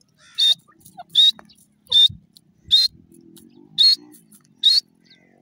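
Grey francolin (teetar) giving six short, sharp, high-pitched calls, evenly repeated about every three-quarters of a second.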